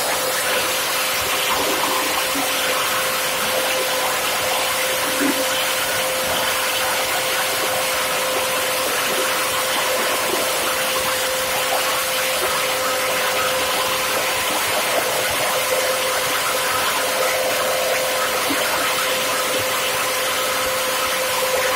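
Plastic scrap grinder for PET bottles running steadily, a broad even rush of noise with a constant whine in it, as plastic bottles are fed into its hopper.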